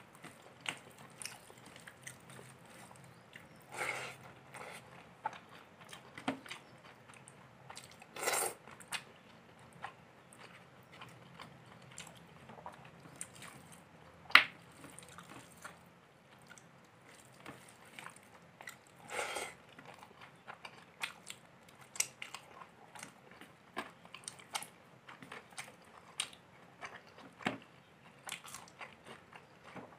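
Close-miked eating: a person chewing mouthfuls of chicken pulao and curry eaten by hand, with scattered wet mouth clicks and a few louder smacks.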